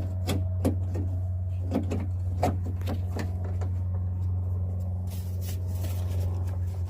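Clicks and knocks of hard plastic door-trim and handle parts being handled and worked loose by hand, then a brief scraping rustle about five seconds in, over a steady low hum.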